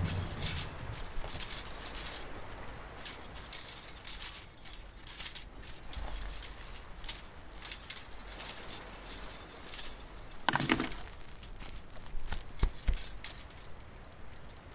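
Irregular light clinks and rustles as a rope and a small rusty wire ring are handled on the concrete rim of a well. There is one louder, brief sound about ten and a half seconds in.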